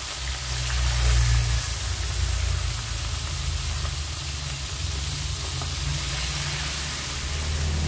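Whole Indian mackerel deep-frying in hot oil in a wok: a steady sizzle of bubbling oil, over a low steady rumble.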